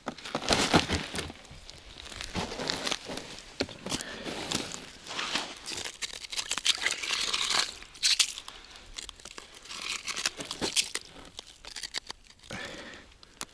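Ice scoop scraping and crunching slush and ice chips out of an ice-fishing hole, in irregular crunchy bursts.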